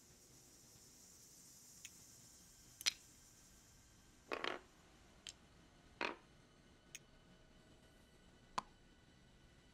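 Faint, irregular clicks and taps, about seven of them, the sharpest about three seconds in and a longer double tap a little after four seconds, over a faint hiss that fades out about three seconds in.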